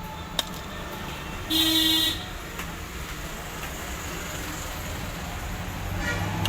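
A vehicle horn honks once, briefly, about a second and a half in, over a steady rumble of road traffic that grows louder toward the end. A single sharp click comes just before it.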